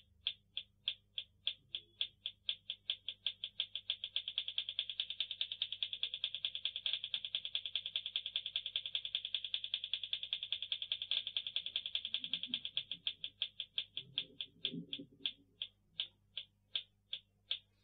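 Small loudspeaker of a 555-timer tick-tock clock circuit giving regular sharp electronic clicks. They come about three a second at first, speed up to a rapid ticking in the middle and slow again near the end as the timing potentiometer is turned.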